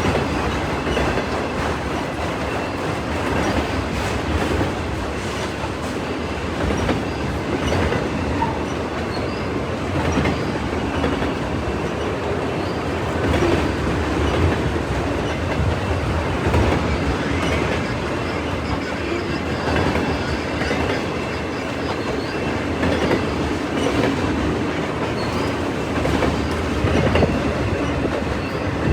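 CN freight train's cars rolling past at speed, with a steady rumble and repeated clicks of wheels over the rails, and a faint high steady whine above it.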